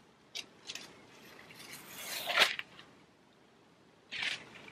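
Light clicks as a MacBook Air's lid is handled, then the thin protective paper sheet over its screen rustling as it is peeled off, swelling to its loudest about halfway through, with another brief rustle near the end.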